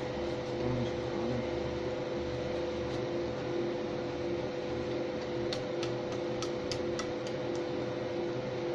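MOPA fiber laser marking machine running, a steady fan-like hum with a droning tone. A run of about eight light clicks comes about two-thirds of the way through.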